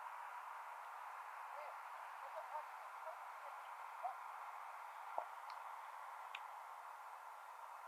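Faint, steady outdoor hiss with a few faint, distant voices and two soft clicks about a second apart.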